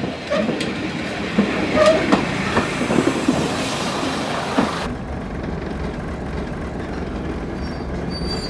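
Train at a station platform: a rumble with scattered clicks, clacks and brief metallic squeals for about five seconds. Then the hiss drops away, leaving a steady low rumble.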